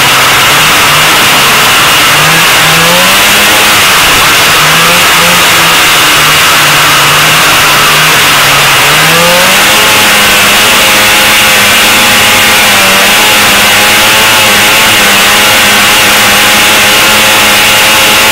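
A vintage 440-class two-stroke racing snowmobile engine at full race revs, heard very loud from on board. For about nine seconds the pitch jumps up and down in short surges through a turn, then it climbs and holds a higher, steady pitch down the straight.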